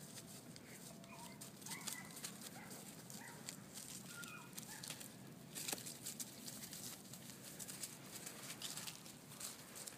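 Pyrenean mastiff puppies rustling and crunching through dry leaves and grass as they sniff, dig and walk, with a few short faint chirps early on.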